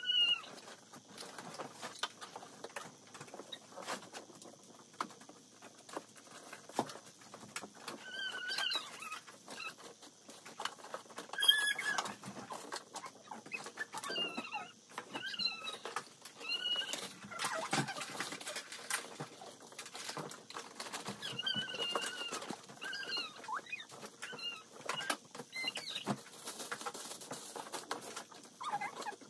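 Rustling and clicking of plastic bags, clothes and small items being handled and packed into an open hard-shell suitcase, with scattered short high squeaks and a sharper clatter about halfway through.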